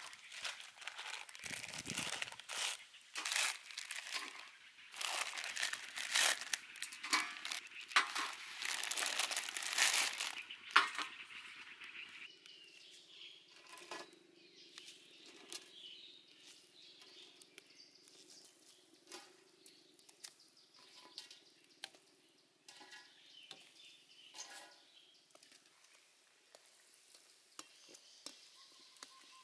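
Plastic instant-noodle wrappers crinkling and tearing as the packets are opened, dense and crackly for about the first eleven seconds. After that it is much quieter: a faint steady hum and scattered light clicks while the noodle blocks cook in water in a wok.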